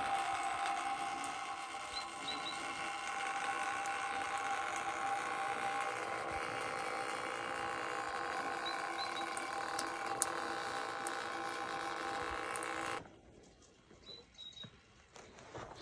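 Meltwater dripping off a roof during a thaw, with a few short bird chirps over it. The sound drops away abruptly about thirteen seconds in.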